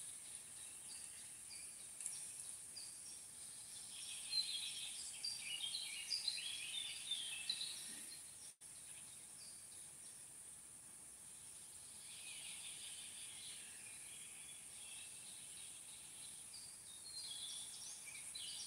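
Faint outdoor ambience: small birds chirping and singing on and off over a steady high hiss, with the audio dropping out for an instant about halfway through.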